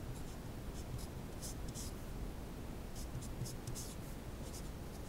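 Felt-tip marker writing on paper: short scratchy strokes in quick, irregular groups as letters are written out.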